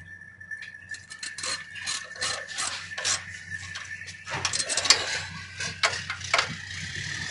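A 9/16 ratchet wrench clicking in short runs as a nut is run down and tightened on the anchor bolt of a truck battery-box lock.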